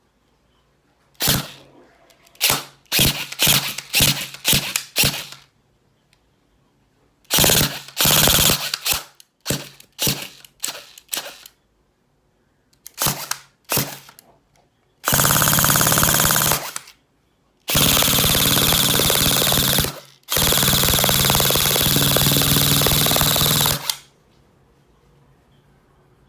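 Electric airsoft rifle (AEG) with a newly replaced piston being test-fired: a series of single semi-auto shots in quick groups, then three long full-auto bursts of rapid, steady cycling from the gearbox.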